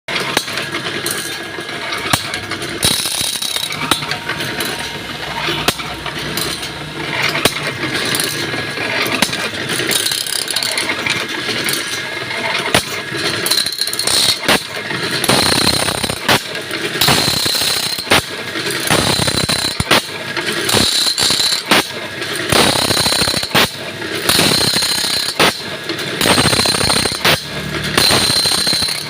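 Sawmill blade sharpening machine running, its grinding wheel squealing against the saw teeth in repeated strokes, with a high whine that comes and goes.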